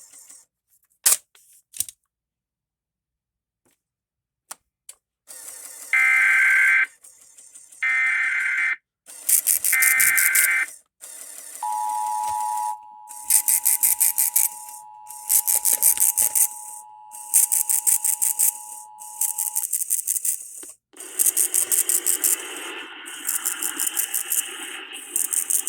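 Emergency Alert System Required Monthly Test opening: three short screeching SAME data-header bursts, then the two-tone attention signal held steady for about eight seconds, the cue that an emergency message follows. A high rattling hiss pulses about once a second underneath from the attention signal onward.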